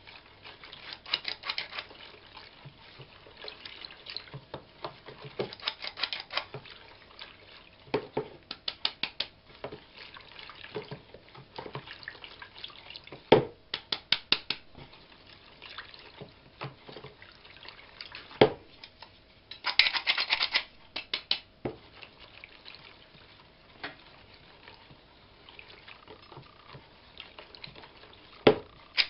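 Metal cup flour sifter being worked over a plastic bowl: short runs of quick rattling clicks from its mechanism as flour falls through, with a few single sharp knocks in between.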